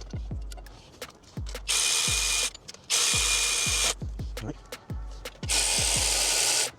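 Cordless power tool running in three bursts of about a second each, driving in bolts while a water pump is being fitted. A beat with deep bass hits plays underneath.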